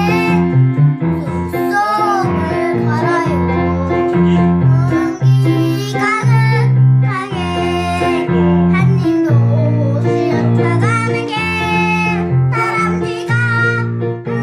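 A child singing a Korean children's song over a steady instrumental accompaniment.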